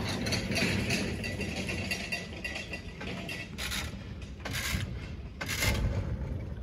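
Mechanical rattling and clattering as boat gear is handled, with three louder bursts of noise in the second half.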